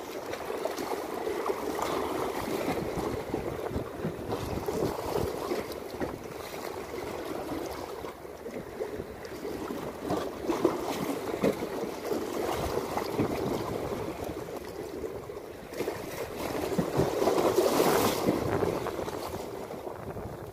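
Sea waves washing and splashing against concrete breakwater blocks in surging swells, the biggest near the end, with wind buffeting the microphone.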